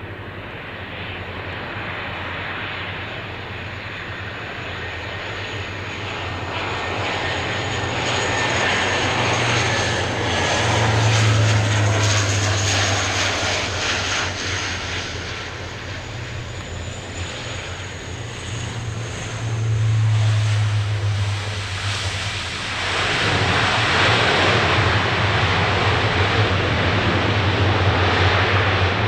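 Lockheed C-130J Hercules four-engined turboprops flying low past, a steady propeller drone with a deep hum under it. The sound swells and dips, and is loudest in the last few seconds as the aircraft pass closest.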